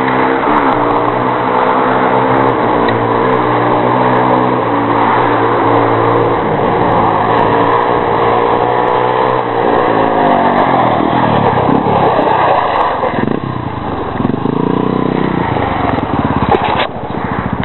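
Off-road motorcycle and quad (ATV) engines. The engine holds a steady pitch for about the first nine seconds, then revs up and down repeatedly as the quad rides the dirt track.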